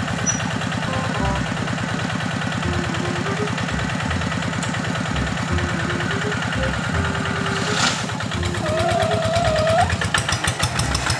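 Single-cylinder diesel engine of a two-wheel hand tractor running with a steady chugging, then pulling away with its loaded cart near the end. A brief whine is heard about nine seconds in.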